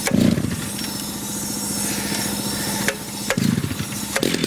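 Stihl two-stroke petrol cut-off saw running at a low idle, with two short bursts of throttle: one near the start and one about three and a half seconds in.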